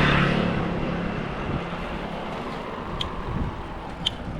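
Road traffic: a motor vehicle passes close by, its engine hum and tyre noise fading away over the first couple of seconds. Two short high ticks come near the end.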